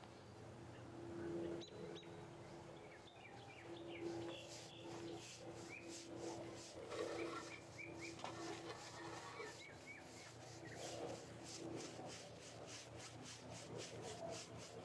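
A bristle paintbrush scrubbing black stain onto wooden fascia boards, faint at first, then quick back-and-forth strokes from a few seconds in. Birds chirp throughout.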